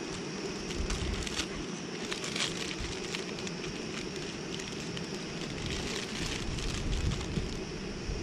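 Steady rush of a camping stove burner, with light crackling and sizzling from food heating in the pan.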